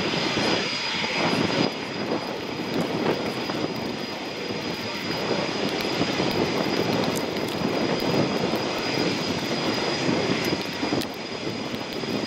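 Eurofighter Typhoon's twin jet engines running at taxi power, a steady rush of jet noise with a thin high whine on top.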